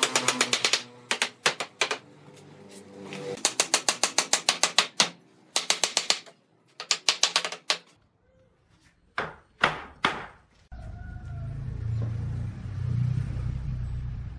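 Rapid runs of light hammer taps on a wooden bench joint, about nine strikes a second in several bursts, then a few single knocks. Near the end, a steady low scraping rumble as the wooden bench is shifted on the concrete floor.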